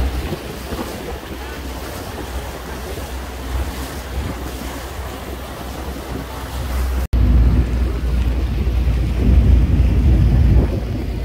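Wind buffeting the microphone on a moving passenger boat, with water rushing past the hull and the low rumble of the boat's engine. About seven seconds in the sound cuts out for an instant, and after that the low rumble is louder.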